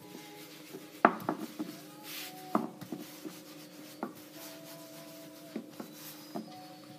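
Long thin wooden rolling pin rolled back and forth with a sheet of homemade phyllo dough wrapped around it on a floured counter: a soft rubbing broken by several sharp wooden knocks, the loudest about a second in and another about two and a half seconds in.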